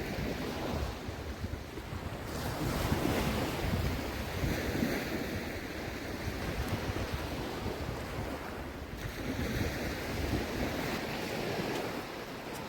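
Shallow surf washing on a sandy beach, swelling twice, with wind buffeting the microphone.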